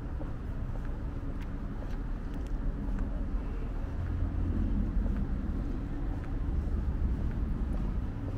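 A vehicle engine's low rumble over street ambience, growing louder about four seconds in as it passes close, with a few faint clicks.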